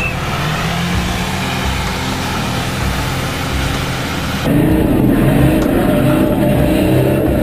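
Off-road rally car's engine running under load as it drives through deep muddy water. About four and a half seconds in, the sound changes to inside the cab, where the engine revs rise and fall repeatedly.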